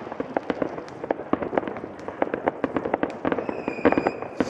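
Many fireworks and firecrackers going off in quick, irregular succession, a dense string of sharp pops and bangs. A high steady whistle sounds for about a second near the end.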